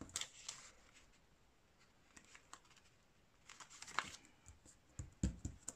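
Faint rustling and light tapping of paper as fingers press a glued piece of paper down onto a card, with a few soft low knocks near the end.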